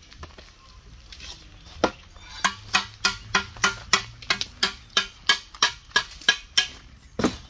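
A metal tool knocking on a concrete block at a block-laying job: a steady run of sharp, ringing taps, about three a second, then a heavier knock near the end.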